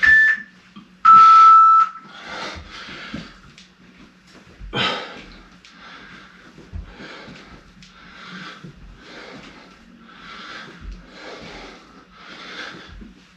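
Workout interval timer beeping: a short high beep, then a longer, lower beep about a second in that starts the set. A man then breathes hard and fast through the lunges, a puff about every 0.7 s, with a few soft low thumps.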